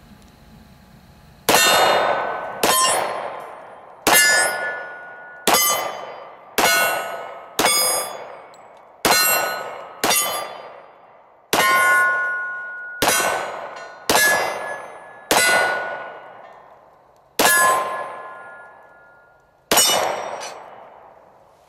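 Glock 22 .40 caliber pistol fired about fourteen times at a steady pace, each shot hitting steel targets that clang and ring, every ring fading over about a second.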